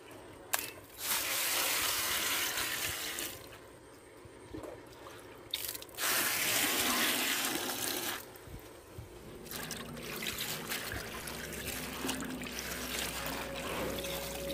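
Water pouring into a plastic basin of water spinach leaves in two gushes of about two seconds each, then quieter splashing and dripping as the leaves are swished and lifted in the water.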